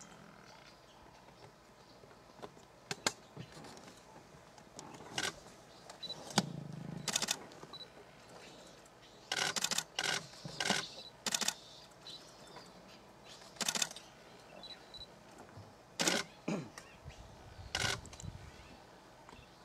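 Camera shutters clicking, single shots and quick runs of several frames, over a quiet outdoor background, with a brief low rumble about six seconds in.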